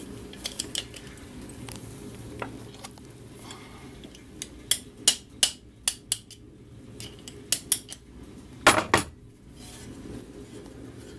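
Metal parts and tools clicking and clinking against a cast aluminium moped engine side cover as it is handled and worked on: a series of sharp separate clicks, bunched in the middle, with one louder knock late on.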